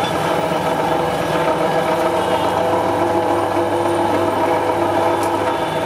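Motor-driven sugarcane juice crusher running steadily as cane is fed through its geared steel rollers, a constant mechanical hum with several held tones.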